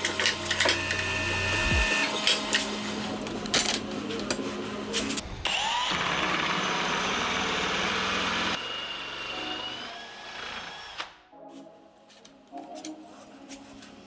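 A few metallic clanks and knocks, then a cordless drill spinning a hole saw in a tube notcher, cutting into metal tubing for about three seconds before it stops and winds down.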